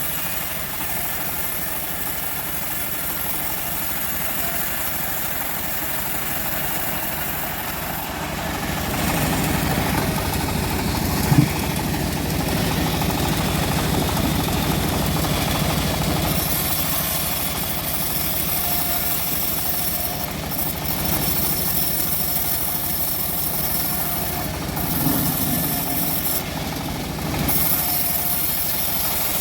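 Homemade engine-driven bandsaw mill running steadily while sawing teak. It gets louder for several seconds in the middle, with a single sharp knock about eleven seconds in.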